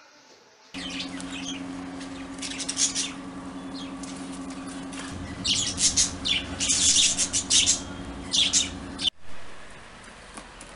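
Rooster squawking and scuffling with a dog: clusters of short, harsh, scratchy bursts, thickest in the middle stretch, over a steady low hum.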